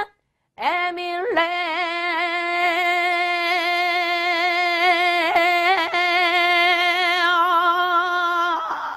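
A woman's voice imitating the long ring of the Emille bell (Sacred Bell of King Seongdeok): one long sung tone held for about eight seconds, wavering slightly in pitch, starting under a second in.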